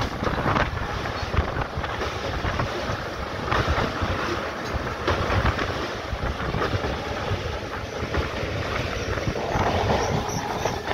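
MEMU electric train running along the track, heard from an open coach door, with wind buffeting the microphone.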